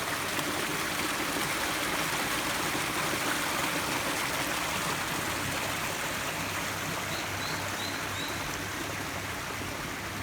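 Rushing water of a mountain stream or waterfall: a steady, even rush with no change in level.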